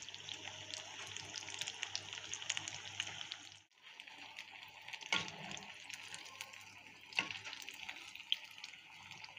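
Breaded chicken bread rolls deep-frying in hot oil in a wok: a steady crackle and sizzle of the oil. It breaks off briefly a little over a third of the way through, and a few sharper clicks stand out later as a metal spoon turns the rolls.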